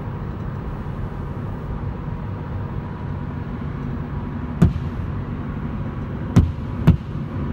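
A steady low mechanical hum or rumble, like a motor running, with three sharp knocks in the second half, the last two close together.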